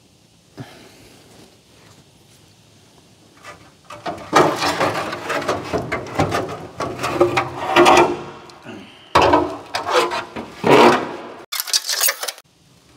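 Rusted sheet-steel rear floor panel with its spare wheel well, cut out of a Datsun 260Z, being pulled free of the body shell, scraping and rattling against the surrounding metal in bursts from about four seconds in, ending in a sharper, higher scrape.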